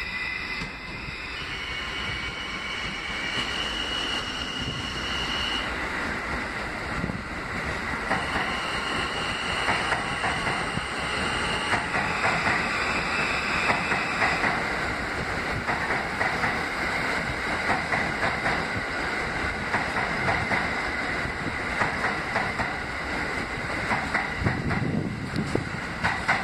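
R160B subway train running through the station on the express track without stopping. High steady tones sound as it approaches, then rapid clicking of the steel wheels over the rail joints grows louder as the cars go by.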